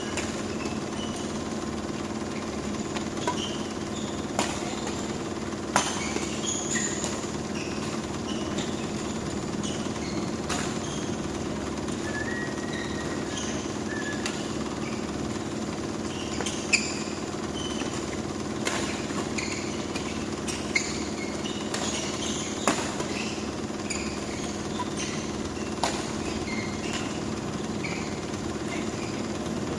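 Badminton rackets striking a shuttlecock in sharp, irregularly spaced cracks, with short high squeaks of shoes on the court floor, over a steady hum.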